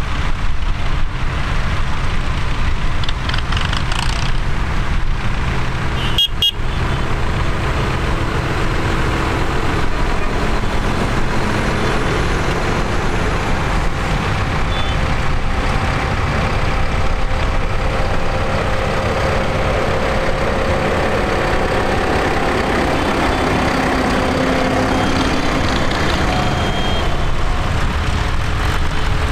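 Diesel engines of John Deere and Massey Ferguson tractors running steadily as they drive slowly one after another across a grass field, with a heavy steady low rumble.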